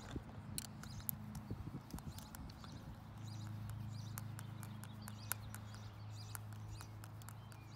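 Screwdriver backing out small Phillips screws from a plastic umbrella hub cap: scattered light clicks and taps of metal on the screws and plastic. A low steady hum comes in about three seconds in.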